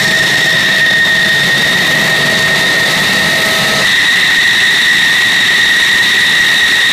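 F-16 Fighting Falcon's jet engine running at low taxi power: a steady, loud, high-pitched whine over a broad rumble, as the fighter taxis past.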